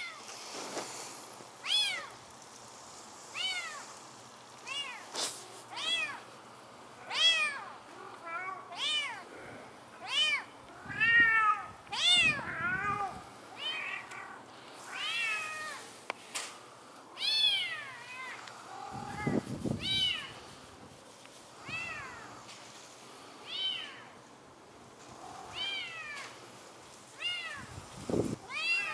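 A cat meowing over and over: short meows that rise and fall in pitch, about one a second, some coming in quick runs. A few dull low bumps come between them.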